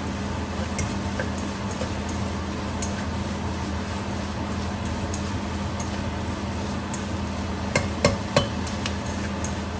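Chopped onions and garlic stir-frying in a pot over a steady hum, with a few sharp knocks of the stirring utensil against the pot, several close together near the end.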